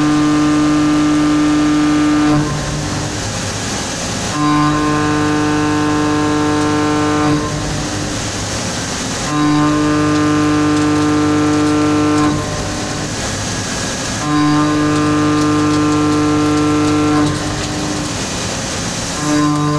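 Kennametal 7792 high-feed shell mill plunge-milling steel on a Doosan NHM 6300 horizontal mill. Each plunge gives a steady, pitched cutting tone lasting about three seconds, and the plunges repeat about every five seconds, four times over, with a fifth starting near the end. Between plunges there is a hiss while the tool is out of the cut.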